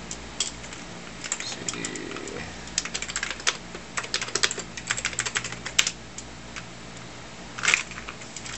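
Typing on an Amiga 2000 keyboard: runs of quick key clicks for the first six seconds or so, then a louder cluster of keystrokes near the end.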